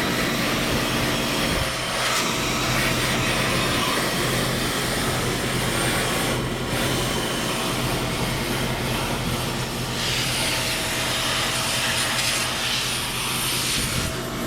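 Garden hose spraying water onto an air conditioner's condenser coil, a steady hiss that grows brighter about ten seconds in. Under it runs the steady low hum of a neighbouring Goodman air conditioner's condenser unit.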